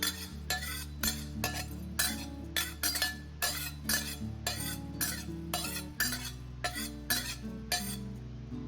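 A spatula scraping and clinking against a dry pan as Sichuan peppercorns and rosemary are stir-roasted without oil, in short strokes about three a second, over background music.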